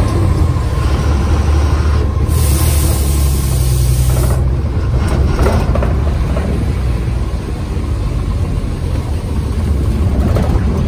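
Bus engine running with road noise, heard from inside the moving bus: a steady low drone. About two seconds in, a high hiss of air starts and lasts about two seconds.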